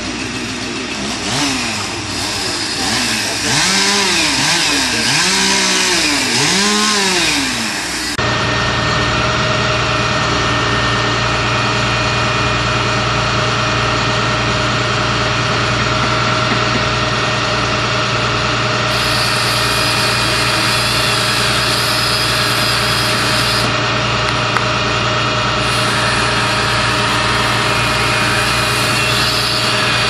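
A chainsaw revved up and down about five times in quick succession; about 8 seconds in the sound cuts abruptly to a steady engine running at an even pitch for the rest of the time.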